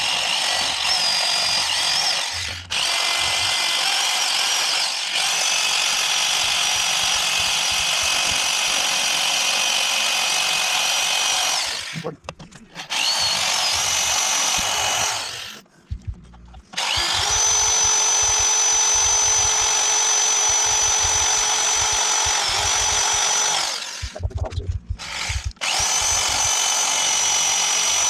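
Small power tool spinning a grinding-stone bit at high speed against a motorcycle drive chain, grinding through a link to cut the chain off. A steady high whine with grinding noise, stopping briefly three times, about 12, 16 and 25 seconds in.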